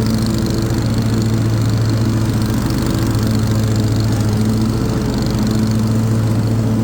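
Cub Cadet RZT L zero-turn mower's engine running steadily with the 54-inch cutting deck engaged and the blades spinning. The deck runs smoothly, without vibration or noisy spindle bearings.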